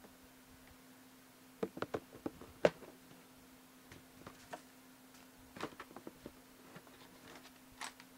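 Scattered clicks and knocks of objects being handled, bunched into two flurries about two and six seconds in, over a steady low hum.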